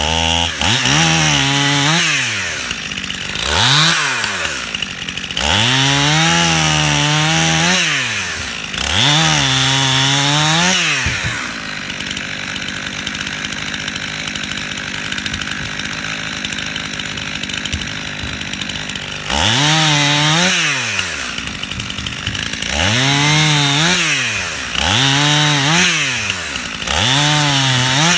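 Stihl two-stroke chainsaw making a series of short cuts through firewood limbs. Each cut is a rise and fall in engine pitch, and the saw drops back to idle between cuts. Four cuts come in the first half, then it idles for several seconds, then four more quick cuts near the end.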